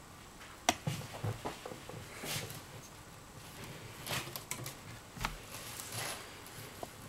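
Plastic lanyard (scoubidou) strings being handled and pulled through a woven piece to even up both sides: a sharp click, scattered small clicks and taps, and a few short rustles as the strands slide.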